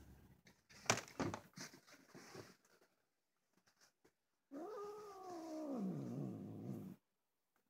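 Black-and-white domestic cat giving one long, low, grumbling yowl of about two and a half seconds that sinks in pitch toward the end: the sound of an annoyed cat protesting at being told to get off its spot. A few faint clicks and rustles come in the first couple of seconds, before the yowl.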